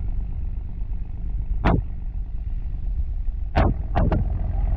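Fishing boat engine running steadily with a low rumble. A few sharp knocks sound over it: one after about two seconds, then three in quick succession near the end.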